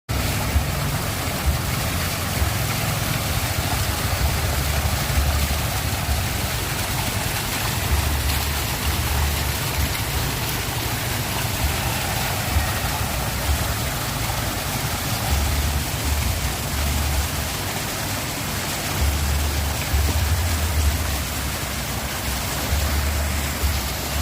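Waterfall water rushing steadily, with uneven low rumbles coming and going underneath.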